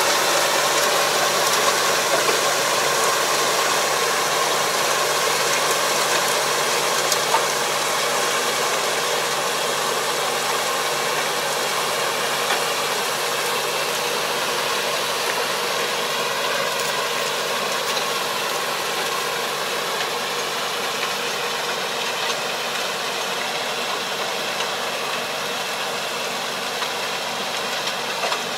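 Tractor diesel engine running steadily under load as it pulls a power harrow through a flooded rice paddy, growing slowly fainter as the tractor moves away.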